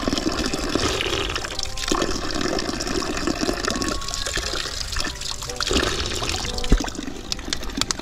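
Running water splashing steadily, from a drinkable spring.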